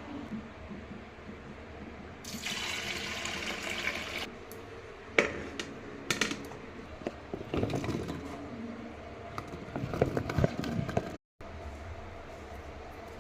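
Liquid pouring for about two seconds, then a run of sharp clinks and knocks from kitchen utensils. The sound cuts out abruptly near the end.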